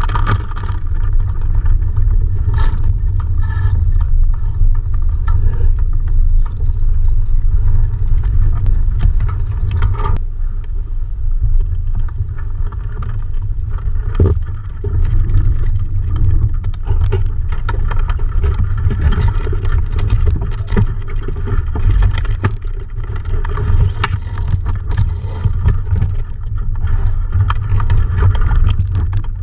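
Wind buffeting a camera mounted at the top of a sailing dinghy's mast: a steady, loud low rumble, with a few sharp knocks scattered through it.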